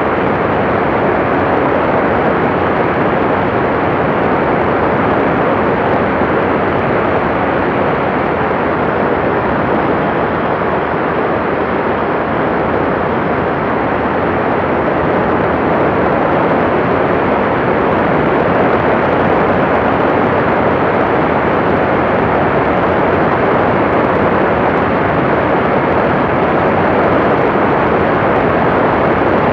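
Steady, loud rushing noise of airflow and engine from the TrueLite Part 103 ultralight in flight, picked up by a wing-mounted camera, growing slightly louder past the middle.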